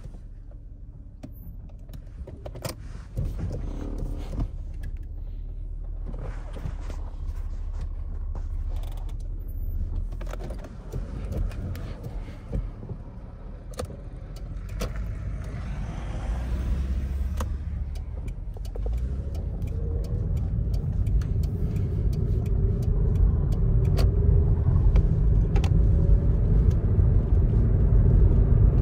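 Car engine and road noise heard from inside the cabin while driving, growing steadily louder over the second half as the car gathers speed, with a few small clicks and knocks.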